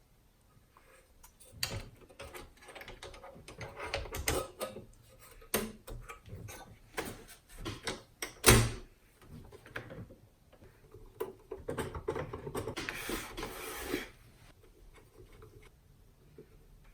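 Hands handling and fitting together the plastic parts of a car's touch-screen head unit: irregular clicks, knocks and rattles, with one sharp knock about eight and a half seconds in and a longer scratchy rustle a little before the end.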